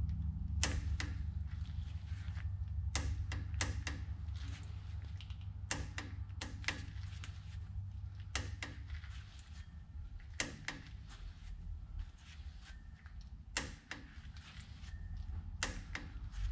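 Hand ratchet clicking in short bursts of a few clicks every two to three seconds while the wheel-bearing adjusting nut on a truck's front axle spindle is tightened, with a low steady hum underneath.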